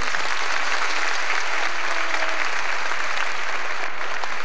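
Audience applauding steadily, a dense even clapping, as a children's dance number ends.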